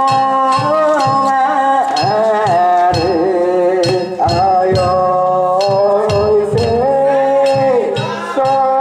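Danjiri festival music (danjiri-bayashi) played on the float: a held, wavering flute melody over regular drum and hand-gong strikes, about three a second.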